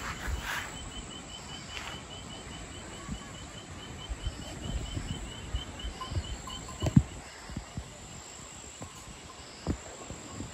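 Insect chirping in a steady high pulse of about four chirps a second, fading in the last few seconds. Dull low thumps, the loudest about seven seconds in.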